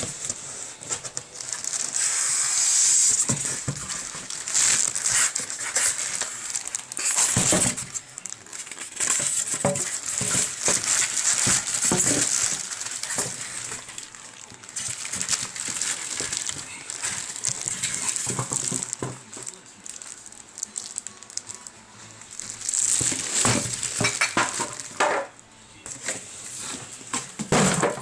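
Plastic wrapping bag crinkling and rustling as boxed equipment is handled, with a few knocks against the cardboard box and foam packing.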